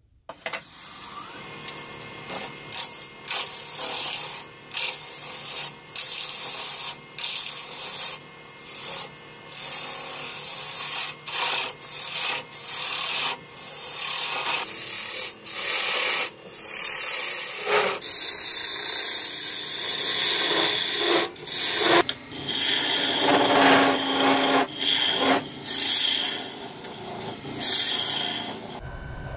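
Wood lathe turning a branch blank while a hand-held gouge cuts into the spinning wood. It makes a hissing scrape that comes and goes in many short strokes with brief pauses between them.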